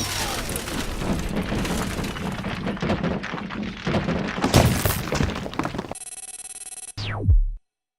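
Layered film sound effects: dense crashing and clattering with a loud impact about halfway through, then a steady electronic buzz, ending in a loud, steeply falling power-down whine that cuts off abruptly.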